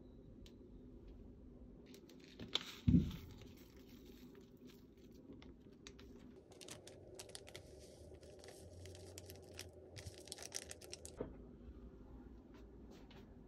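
Small kitchen handling noises during food prep: a dull knock about three seconds in, then scattered light clicks and crinkling rustles that grow busier in the second half.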